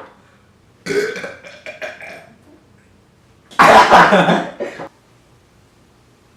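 A person belching after a shot of carbonated soda: a shorter burst about a second in, then a long, loud belch about halfway through.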